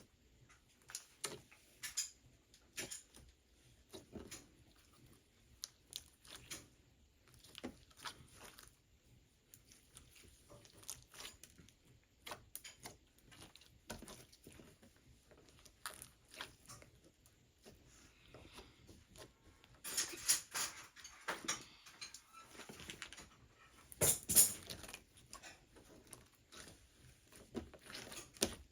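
Light scattered clicks and scratching of a small animal moving about, with two louder spells of rustling about two-thirds of the way through.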